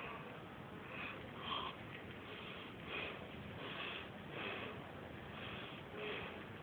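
Guinea pig chewing dill: short crunching bites repeating roughly every half second to a second.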